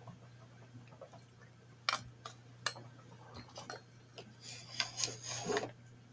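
Small objects being handled: a couple of sharp plastic clicks about two seconds in, then a busier run of clicks, taps and rustling near the end.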